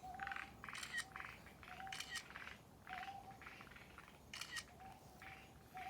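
Frogs calling: faint short rattling croaks, each with a brief lower note, repeating about once or twice a second.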